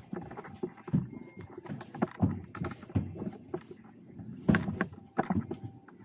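Irregular soft knocks, thumps and rattles, the loudest cluster about four and a half seconds in.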